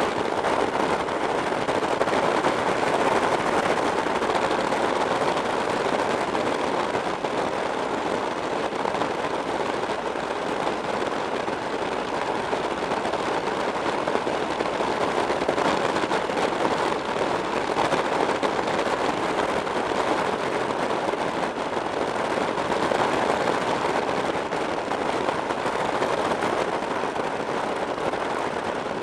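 Steady rush of wind buffeting the microphone of a camera mounted on a motorcycle moving at road speed, mixed with the bike's road noise.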